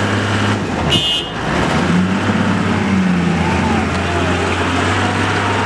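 Diesel engines of a Komatsu WA100 wheel loader and a heavy tanker truck running hard under load as the loader pushes the mired tanker through mud, with the engine note rising about two seconds in. A brief high-pitched squeal or toot cuts through about a second in.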